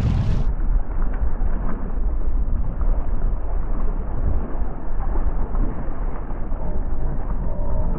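Strong wind buffeting an action camera's microphone on a kayak at sea: a loud, steady low rumble that turns muffled about half a second in, as the high end suddenly drops away.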